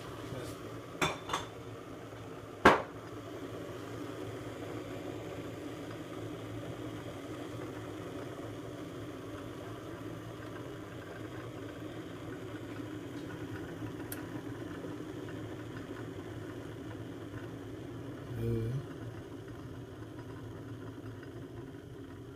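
Arçelik Turkish coffee machine running with a steady low hum while it brews. Two light clinks about a second in and a sharp knock just before three seconds in as a china cup is set down on the stone counter, and a short dull thud about eighteen seconds in.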